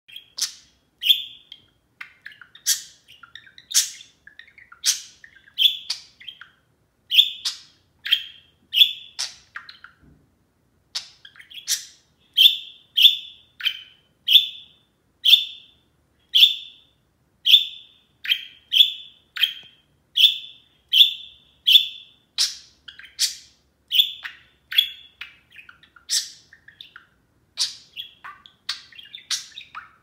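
A budgerigar gives loud, sharp contact calls over and over, about one to two a second, with a brief pause partway through. These calls are how a budgie keeps in touch with a flock mate out of sight, here another budgie elsewhere in the house.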